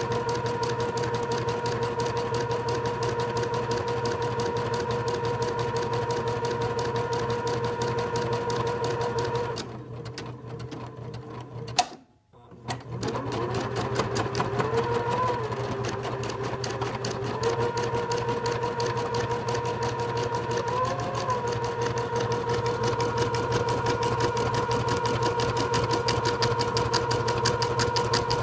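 Computerized embroidery machine stitching at a fast, steady rate, with the needle's rapid clatter over a motor hum. About ten seconds in it slows and goes quieter, then gives a sharp click and stops briefly. It starts up again with the motor pitch rising and wavering before settling back into steady stitching.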